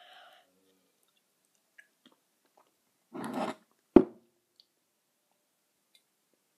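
Mostly quiet, with a short breathy noise from the girl about three seconds in, then a single sharp knock as a mug is grabbed and lifted.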